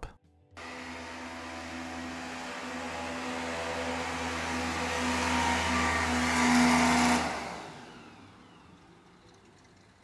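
Airboat engine and its large propeller running, pushing a broken-down pickup truck hitched to the airboat's trailer. It starts about half a second in, grows steadily louder for about seven seconds, then dies away.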